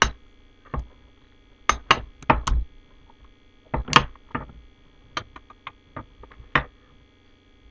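Handling noise: irregular sharp clicks and knocks, about a dozen, as a rubber balloon is stretched over the rim of a plastic-and-metal plumbing fitting, the loudest knock about halfway through.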